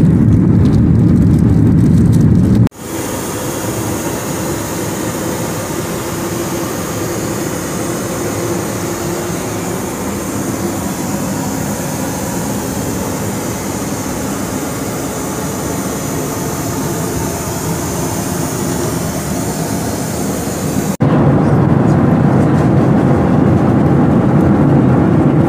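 Boeing 737 MAX 8 cabin noise in flight, a steady low roar. About three seconds in it cuts to a quieter, brighter hiss of air in the aircraft lavatory. That hiss holds until about three-quarters of the way through, when it cuts back to the low cabin roar.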